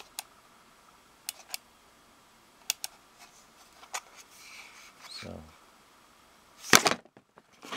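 Handling noise from a plastic star-projector lamp turned over in the hands: a few sharp, scattered clicks and taps, and one louder short thump near the end.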